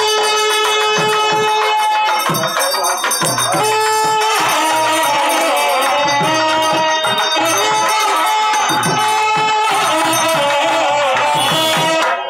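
Loud live South Indian temple festival music: a reed pipe plays long held, sliding notes over continuous drumming.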